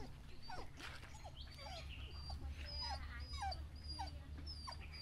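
A dog whimpering: a run of short whines, each falling in pitch, about two a second.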